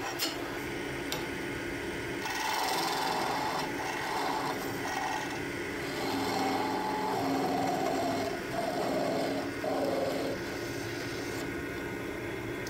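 Wood lathe running, with sandpaper held against a spinning tulip poplar spindle. The rubbing starts about two seconds in over the steady motor hum, swells and eases with the pressure of the hand, and stops near the end, leaving the hum alone.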